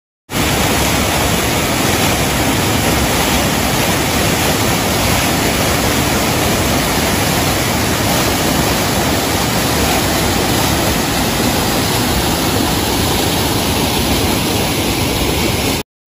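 Waterfall, heavy white water pouring over rocks in a loud, steady rush that cuts off abruptly just before the end.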